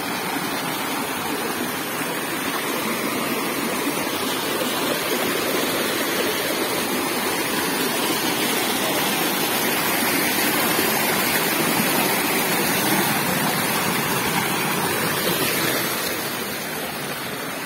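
Rocky mountain stream rushing and splashing over boulders in small cascades: a steady, fairly loud rush of water that swells a little midway.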